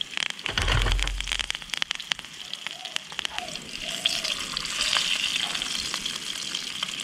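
Fish pieces shallow-frying in olive oil in a frying pan: a steady sizzle full of fine crackles, which gets stronger about four seconds in as the pieces are turned with a fork. A low thud comes about half a second in.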